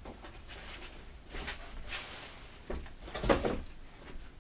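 Handling noise as a Mosin-Nagant 91/30 rifle is lifted out of its long cardboard shipping box: scattered rustling of the wrapping and cardboard, with a louder knock about three seconds in.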